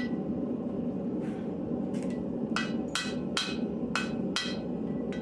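Hand hammer striking a forging-hot stainless steel san mai billet on an anvil to flatten it. There are about eight blows, coming closer together and louder in the second half, each with a short metallic ring, over a steady low rush.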